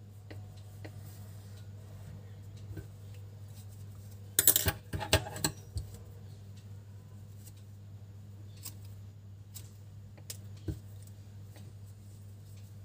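A quick cluster of sharp clicks and taps about four and a half seconds in, from scissors and tools being handled on a table, with a few fainter ticks and a steady low hum.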